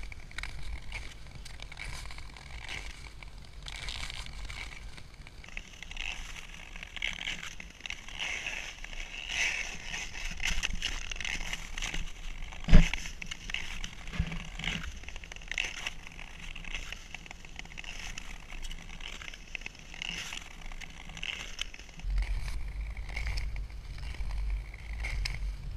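Nordic touring skate blades gliding and scraping over new lake ice, a steady scratchy hiss with small crackles and ticks from the strokes and poles. A single sharp knock about halfway through, and wind rumbling on the microphone at the start and again near the end.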